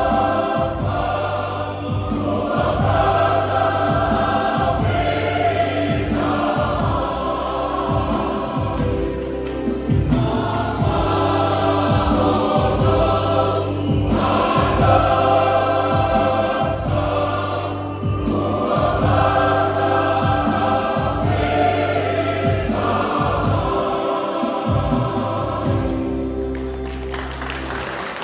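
Church choir singing a hymn in phrases over a steady bass and beat; the singing fades out near the end.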